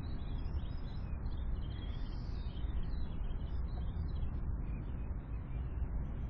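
Small songbirds chirping in many short, high calls over a steady low rumble of background noise.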